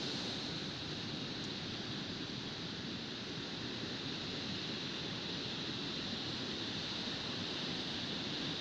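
Rough sea surf breaking on a beach: a steady, unbroken rushing of waves.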